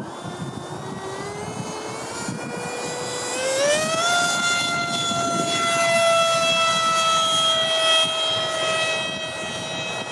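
Six-blade WeMoTec Midi electric ducted fan of a Freewing Eurofighter RC jet spooling up: a whine that climbs slowly in pitch, then quickly and louder about three and a half seconds in, then holds high and eases down a little, over a low rushing noise.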